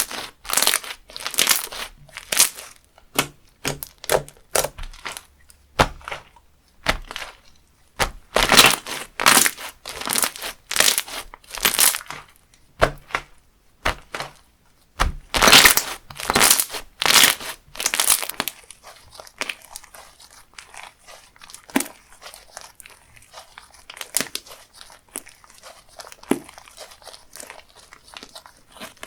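Slime being squeezed and pressed by hand, giving crunchy, crinkling crackles in repeated bursts about once a second; past the middle it turns to a fainter, finer crackle.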